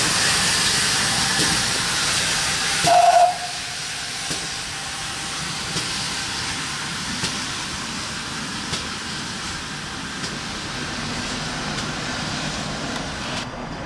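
GWR 1400 class tank engine No.1450 hissing steam as it moves off, with one short whistle blast about three seconds in, the loudest sound. After the whistle the hiss and running go on more quietly as the engine draws away.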